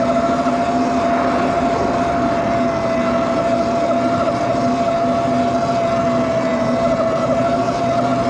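Electric bike motor whining at one steady pitch while riding at constant speed, over a steady rush of wind and tyre noise.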